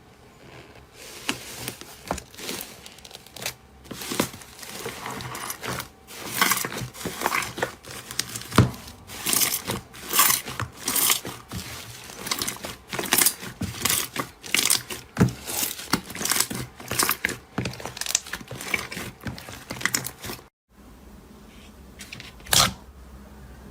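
Slime being squeezed and worked by hand, giving dense, irregular crackling pops and clicks. After a short break about 20 seconds in, only a few isolated pops are heard.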